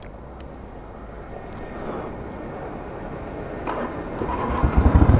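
Harley-Davidson V-twin turning over on its electric starter, then catching and starting up with a loud, even low rumble about four and a half seconds in. The rider puts his sometimes hard starting down to the battery.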